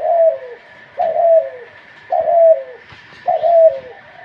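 Spotted dove cooing: four short coos, each falling in pitch, about a second apart.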